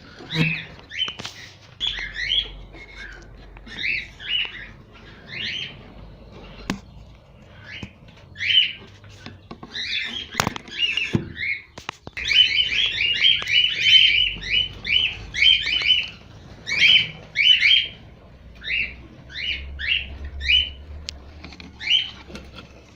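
Cockatiels giving short, repeated chirping calls, with a fast run of calls near the middle and a few sharp clicks.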